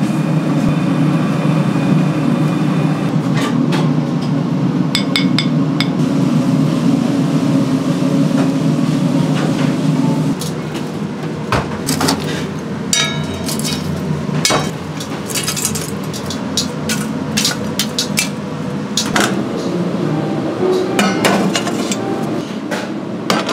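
Steady low rushing noise, then from about ten seconds in, repeated sharp clinks and knocks of metal tongs against lumps of hot hardwood charcoal, some ringing almost glassy, as glowing charcoal is moved and set into a barbecue grill pit.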